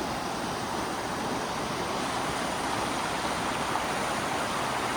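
Fast water rushing steadily down a canyon stream, a constant even rush with no breaks.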